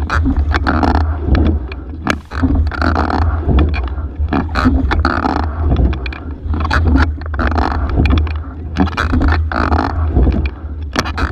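Single scull being rowed hard: rhythmic stroke sounds of oars, oarlocks and water, repeating about every two seconds over a steady low rumble.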